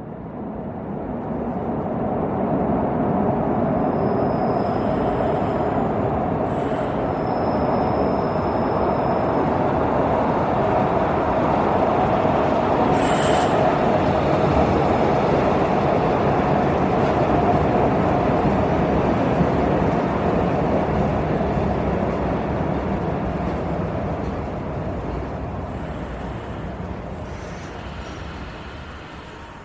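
Metro train running on its rails: a steady, loud rumble that swells over the first few seconds and eases off near the end. A faint high squeal comes in a few seconds in, and a few sharp clicks stand out, one about halfway through.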